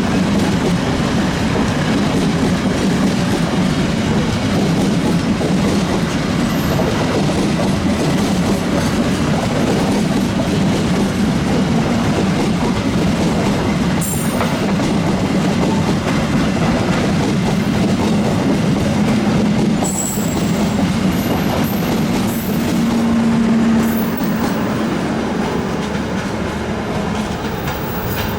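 A long train rolling past close by, its wheels clattering steadily over the rail joints, with a few brief high wheel squeals.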